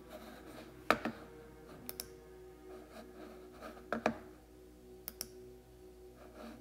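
Fingertip taps on a tablet's touchscreen: four pairs of sharp clicks roughly a second apart, the first the loudest. Under them is a soft, sustained musical drone.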